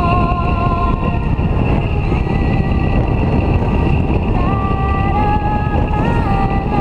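Motorcycle running at cruising speed, its engine drone and wind rush heard from the rider's seat, with music playing over it in held melody notes. An oncoming car passes by near the end.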